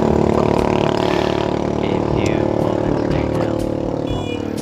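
Motorcycle engine idling steadily, easing slightly in level toward the end.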